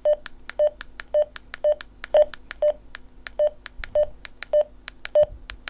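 Radioddity GD-77 dual-band DMR handheld radio giving its channel-change beep over and over as channels are stepped through: short beeps about twice a second, each with a sharp click, over a faint steady hum.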